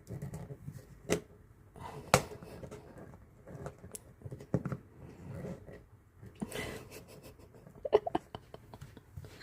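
Cured epoxy resin pieces being handled and pushed together by hand: scattered small clicks and taps, with a brief rustle and a quick cluster of clicks near the end.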